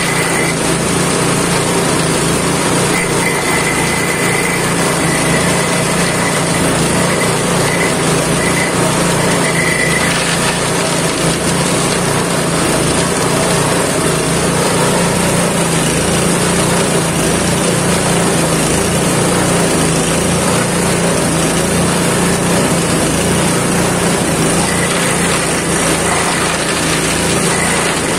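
Homemade grass chopper driven by a small engine, running steadily at speed while leafy branches and dry stalks are fed in and shredded by its blades, which are cut from used brush-cutter blades.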